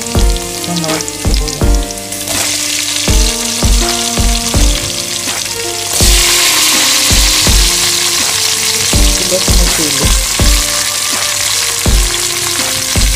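Chopped garlic sizzling in hot oil in a pot. About six seconds in, sliced onions go in and the sizzle becomes much louder and stronger. Background music with a steady beat plays underneath.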